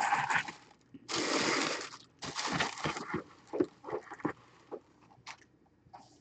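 Tissue paper rustling and crinkling in several bursts as it is pulled back from a folded jersey, followed by a few soft handling taps and clicks.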